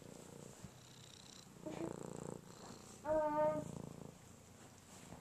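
Domestic tabby cat purring close to the microphone, a low, fine rattling rumble that comes in stretches. A short high-pitched vocal sound rises above it about three seconds in.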